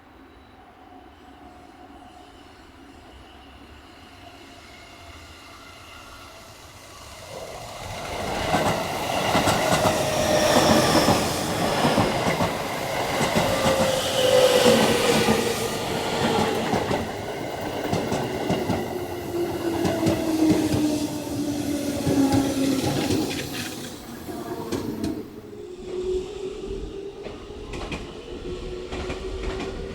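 Electric commuter train coming in: a faint approach grows into loud wheel-on-rail rumble about seven seconds in, with the traction motors' whine falling steadily in pitch as the train brakes. Near the end a new whine starts rising, with clicks of wheels over rail joints.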